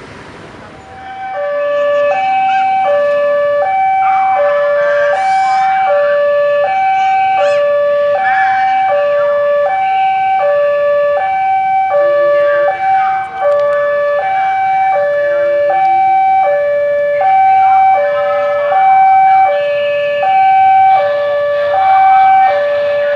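Indonesian railway level-crossing warning siren, starting about a second in and alternating between a higher and a lower steady tone, a full high-low cycle about every one and a half seconds. The siren is the warning that a train is approaching and the crossing gate is closing.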